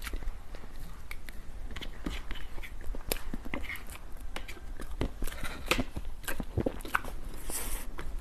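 Close-miked eating of dessert: soft bites, chewing and mouth smacks as irregular short clicks. There is a brief brighter rustle near the end.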